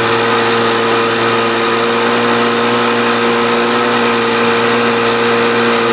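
Jet ski engine driving a canoe, running steadily at an unchanging pitch over a constant hiss.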